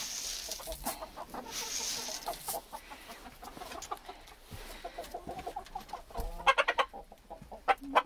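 A flock of chickens clucking, with a few loud, sharp repeated calls from the birds near the end. A rustling hiss comes twice in the first couple of seconds.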